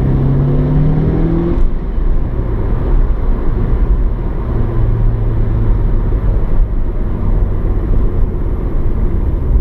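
The Evo's turbocharged 2.0-litre four-cylinder (4G63) engine is heard from inside the cabin while driving. Its pitch rises under acceleration for about a second and a half, then drops away, and it settles into a steady low drone with road rumble.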